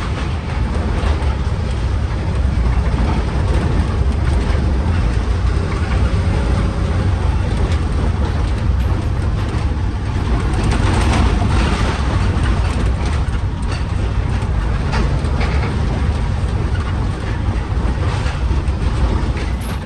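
Delivery truck driving, heard from inside the cab: a steady low engine and road rumble with frequent knocks and rattles.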